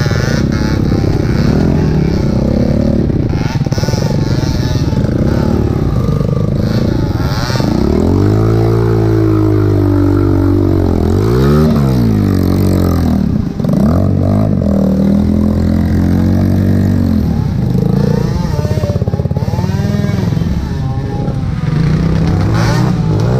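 Dirt bike engine running under its rider on a muddy trail, revving up and down as the throttle is worked, its pitch rising and falling in repeated sweeps, most clearly around the middle.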